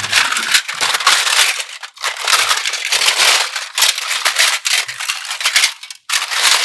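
Slime with small add-ins being squeezed and worked by hand, giving a dense crunching and crackling that stops briefly about six seconds in, then starts again.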